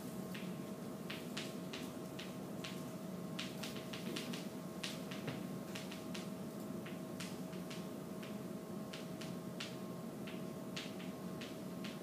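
Chalk tapping and scratching on a chalkboard as words are written, a quick, irregular run of small clicks, over a faint steady hum.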